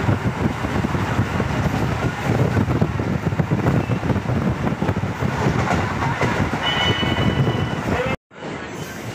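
Suburban electric multiple-unit train running at speed, heard from inside the coach: a steady rumble and clatter of wheels on the rails. A brief high squeal about seven seconds in, then the sound cuts off suddenly just after eight seconds.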